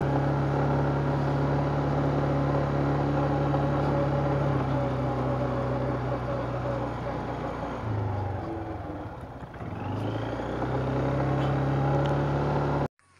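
Loncin XWolf 300 ATV's single-cylinder engine running steadily under way. About eight seconds in the rider eases off the throttle and the engine note drops and fades, then picks back up; the sound cuts off suddenly near the end.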